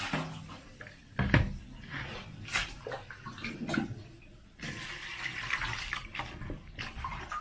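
Water splashing and sloshing in a plastic basin as hands swish and rub wild garlic (Allium macrostemon) to wash the soil from its roots. There is one loud knock about a second in, then small splashes, and a longer spell of swishing in the second half.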